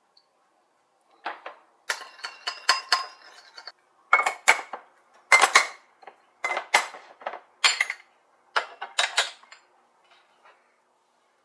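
Dishes and utensils clinking and knocking: a string of sharp clinks over about eight seconds, a few ringing briefly, dying away near the end.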